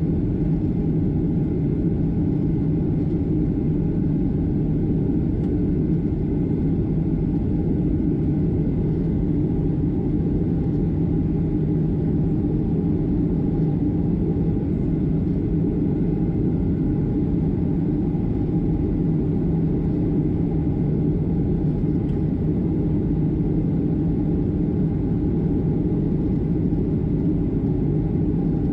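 Steady cabin drone of a Boeing 757-200 in climb: turbofan engine noise and rushing airflow heard from a window seat, with a low, even hum running through it.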